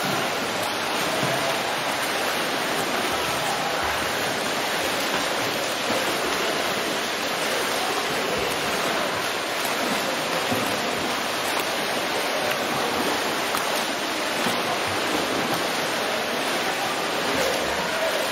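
Swimmers' freestyle strokes splashing and churning the pool water: a steady, continuous wash of splashing.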